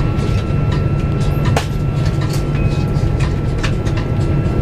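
Cabin noise inside an Airbus A340-300: a steady low rumble from the running CFM56 engines and air system, with a thin steady whine. Irregular light knocks and rattles from the cabin fittings sound through it every half second or so.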